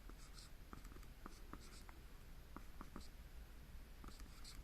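Faint, irregular light ticks, about a dozen, mixed with a few short soft scratchy strokes.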